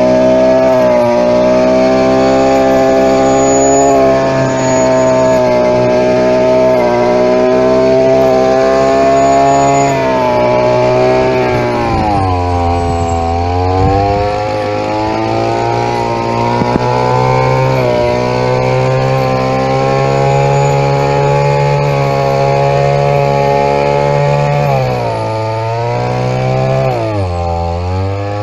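Brush cutter's 2 HP engine running at high revs while cutting tall grass. The revs drop and climb back about halfway through, and dip again twice near the end.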